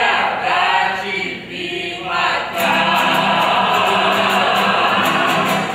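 Several voices singing together in chorus, with short sung phrases first and then one long held final note from about two and a half seconds in.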